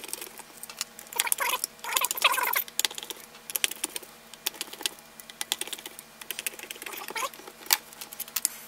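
Irregular clicks and small rattles of screws being undone and pulled from the black plastic housing of a DAB Jet 82M pump's pressure-control unit, with plastic parts knocking as it is handled.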